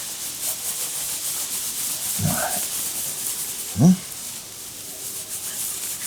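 Continuous rubbing or scraping noise, with a man's two short low grunts rising in pitch, about two and four seconds in; the second grunt is the loudest.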